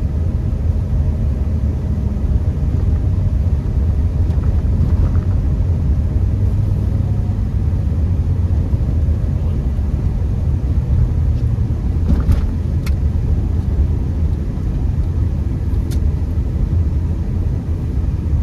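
Steady low rumble of a Honda Accord driving on a snow-covered road, heard from inside the cabin: engine and tyre noise. A few faint clicks partway through.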